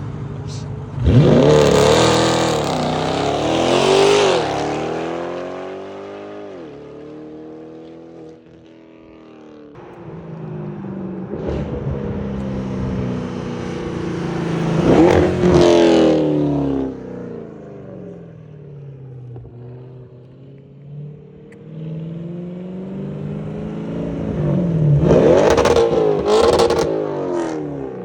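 Performance cars with loud exhausts doing hard flybys: three loud passes, each engine revving up through the gears and dropping in pitch as it goes by.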